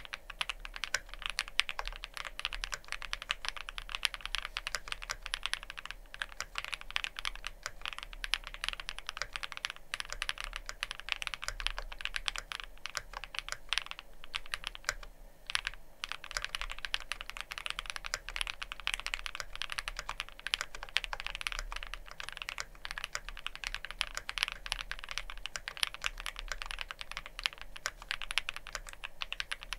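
Fast continuous typing on a Wuque Studio Freya Ultra custom mechanical keyboard, with factory-lubed Cupid linear switches, GMK Tenshi keycaps and a spring-and-gasket mounted plate: a dense run of keystrokes with a brief pause about halfway through.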